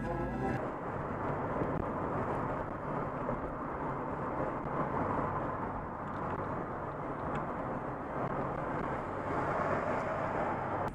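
Steady road and wind noise inside a car's cabin, cruising at motorway speed.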